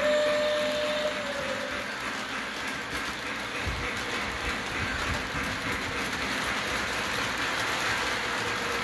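Three-rail model train rolling past on its track, a steady rumble and rattle of the wheels and cars. A single held tone sounds through about the first second, then stops.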